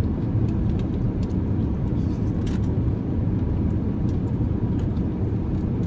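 Steady low rumble inside a car's cabin with the engine running, with a few faint ticks and rustles of food packaging.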